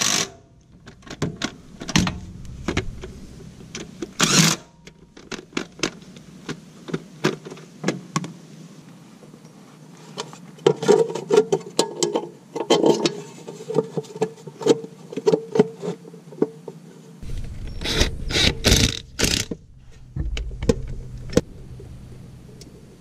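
Steel cover plates and bolts being fitted to a mini excavator's undercarriage: a run of metal clicks, taps and knocks, broken by short bursts of a cordless drill driving bolts in, once about four seconds in and three times close together near the end.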